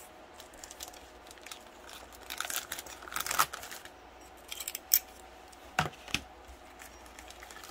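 Plastic packaging crinkling and tearing as a model kit's bagged decal sheet is opened, in short rustling bursts, with a few sharp clicks near the end.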